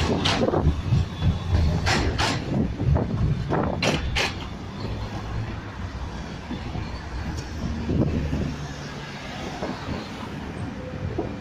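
A low-floor articulated tram rolling past on street track, its wheels knocking over rail joints or crossings, the knocks coming in pairs. The rumble fades about halfway through as it moves away, leaving steady city traffic noise.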